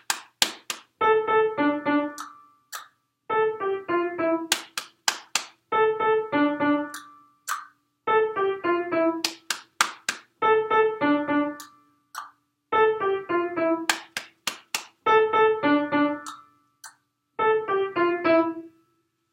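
Piano playing a short stepwise phrase eight times, each phrase a couple of seconds long with a brief gap between. Sharp one-handed body-percussion hits sound in and between the phrases.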